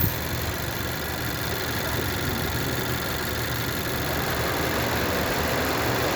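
Car engine idling steadily while misfiring on one dead cylinder, which gets no firing signal; the cause is possibly the wiring or the engine computer.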